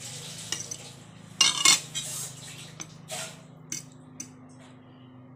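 Metal fork and knife scraping and clinking against a ceramic plate while cutting an omelette: a series of sharp clinks, the loudest about one and a half seconds in. A steady low hum runs underneath.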